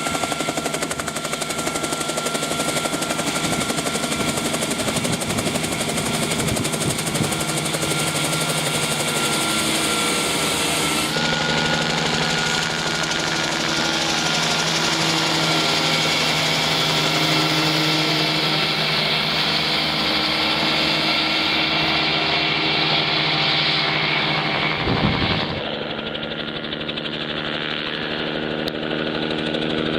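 Bell 47 helicopter's piston engine and rotor running, a loud steady beating drone. About 25 seconds in there is a brief thump, and the sound then turns lower and quieter.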